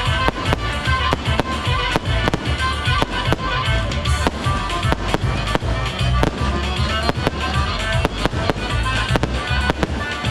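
Fireworks going off in a rapid, irregular run of sharp bangs, several a second, over loud music with heavy bass.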